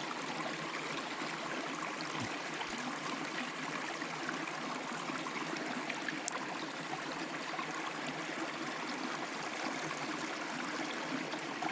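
Creek water flowing steadily over rocks, an even rushing sound with a single faint click about six seconds in.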